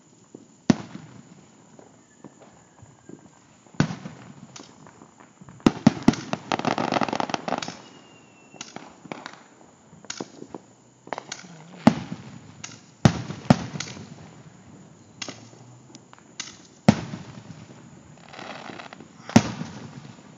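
Aerial fireworks shells bursting: about ten sharp bangs spread out, several in quick succession about six seconds in followed by a couple of seconds of crackling, and another brief crackle near the end.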